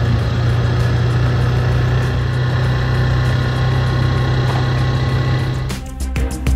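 Engine running steadily at an even pitch, then music comes in near the end.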